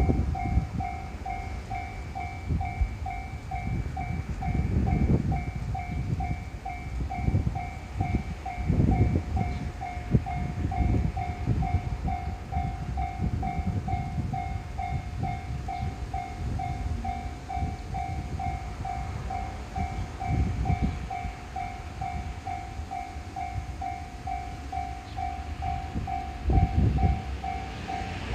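Japanese level-crossing warning bell ringing its steady 'kan-kan' alarm at about two strokes a second, over a low, uneven rumble.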